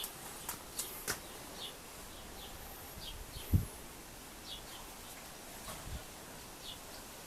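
Quiet outdoor background with short, high, downward bird chirps scattered through it and a few light clicks. A single dull, low thump about three and a half seconds in is the loudest sound.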